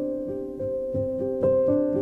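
Soft background piano music: sustained notes changing every half second or so over a gentle steady pulse.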